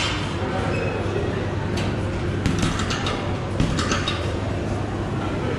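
Fortress boxing gloves punching a heavy bag: a short run of quick, sharp strikes about two to four seconds in, over a steady background hum.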